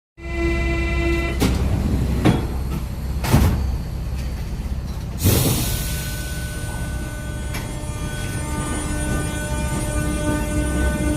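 Paris-region commuter train (RER or Z2N stock) running, with a steady held tone at first, a few sharp knocks over the next few seconds, and a sudden burst of air hiss about five seconds in, followed by steady running noise with thin whining tones.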